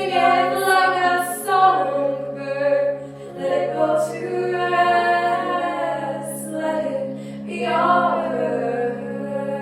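Female voice singing a cappella over looped layers of her own voice played back from an RC-505 loop station. Low notes are held steady underneath while the lead line moves between notes in phrases, with short breaths between them about three seconds and seven seconds in.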